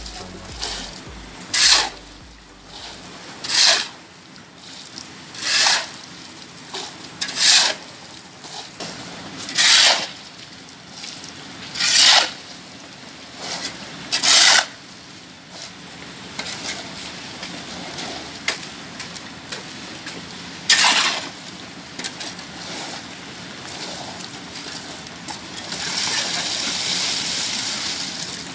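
Shovel scraping concrete mix off a concrete floor, one rasping stroke about every two seconds, with a longer, steadier scrape near the end.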